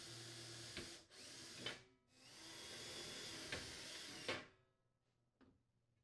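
Milwaukee M18 cordless drill running a 1/8-inch bit through a metal spacer bar into plywood to make pilot holes. It runs in spurts, stopping briefly about a second in and again near two seconds, then runs steadily and stops about four and a half seconds in.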